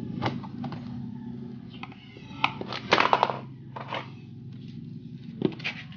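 Plastic clips of a car's fog lamp cover clicking and snapping as the cover is pried and pushed out of the bumper with a screwdriver: a few sharp clicks, with a quick cluster about three seconds in, over a steady low hum.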